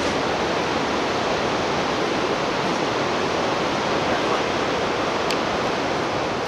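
Steady rushing of a whitewater river's rapids, an even noise with no let-up.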